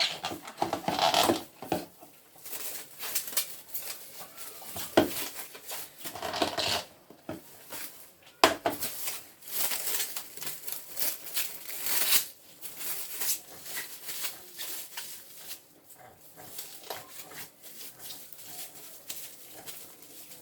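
A utensil scraping and knocking irregularly against a bowl of eba, with two sharp knocks, one about five seconds in and one about eight seconds in, and the handling growing quieter toward the end.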